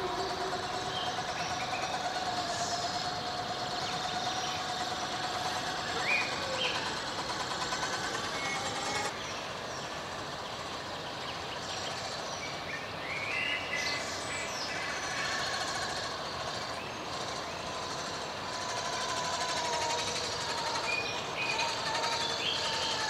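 A 1/10 scale RC crawler's small electric motor and gear train whining as it drives, the pitch drifting with throttle. Birds chirp now and then.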